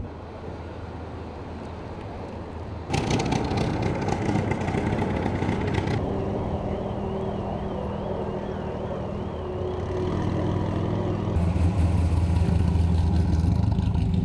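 Car engines running, changing abruptly several times: a low steady idle, then louder running from about three seconds in, and a deeper, louder engine over the last few seconds.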